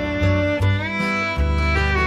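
Instrumental background music, a violin melody with sliding notes over a bass line.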